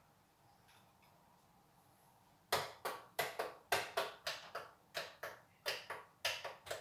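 Quiet room tone, then about two and a half seconds in a run of sharp clicks or taps begins, about four a second, each with a short ringing tail.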